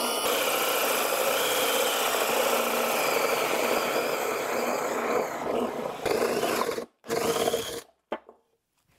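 Cordless drill driving an adjustable circle cutter through a board to cut a 66 mm hole, running steadily under load. It eases off briefly about five seconds in and stops about seven seconds in. A last short burst follows, then it stops for good near the end.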